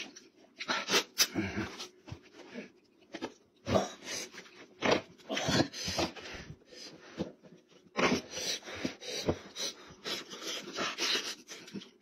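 Wet, open-mouthed chewing and lip-smacking of mutton-head meat eaten by hand, in irregular bursts with short pauses between.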